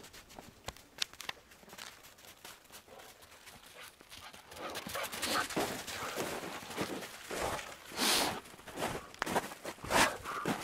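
Footsteps crunching through snow, faint at first and louder and more frequent after about four seconds, with a few loud crunches near the end.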